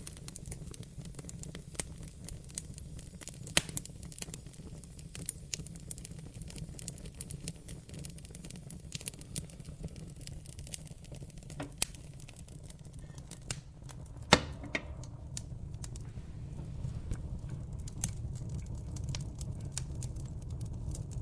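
Wood fire crackling in a fireplace: scattered small pops and snaps over a steady low rumble, with one louder pop about two-thirds of the way through.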